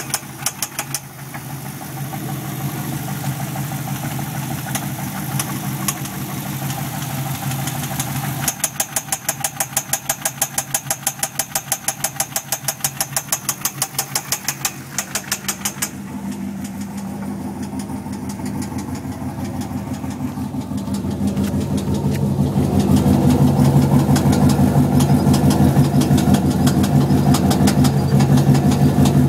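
Holden Thunder ute's 6-litre L76 V8 running with a regular knocking, tapping noise that the owner cannot explain. The engine grows louder about three-quarters of the way through.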